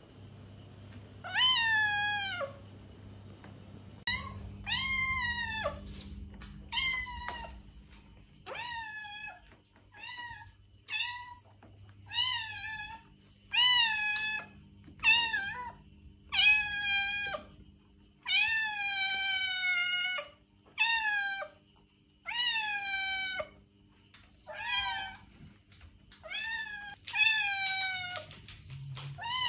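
Domestic cat meowing over and over: a long series of drawn-out meows, one every second or two, each one dropping in pitch as it ends.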